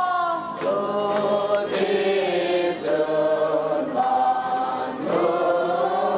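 A group of voices singing together in long held notes, moving from note to note every second or so.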